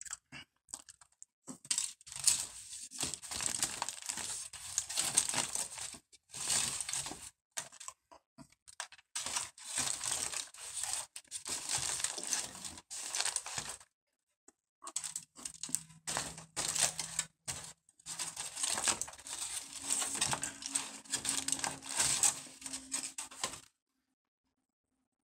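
Aluminium foil crinkling and rustling as it is handled and crumpled, in long crackly bursts with several short pauses, stopping shortly before the end.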